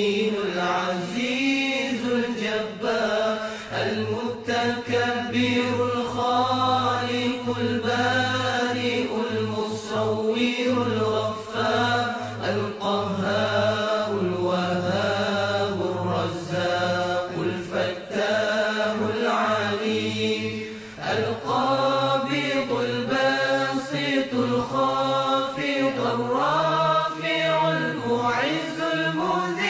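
Devotional nasheed chanting: a voice sings long, wavering, ornamented lines over a steady low drone, with a short break about two-thirds of the way through.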